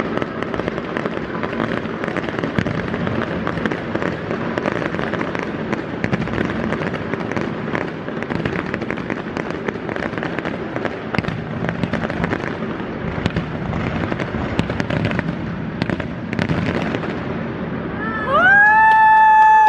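Fireworks display: a dense, continuous barrage of crackling and popping bursts. Near the end a loud held pitched tone rises over it for about two seconds.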